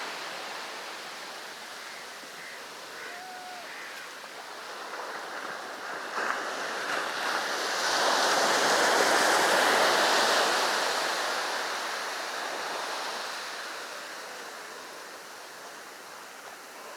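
Sea surf: waves breaking and washing up the beach, one wave swelling loud about halfway through and then slowly fading.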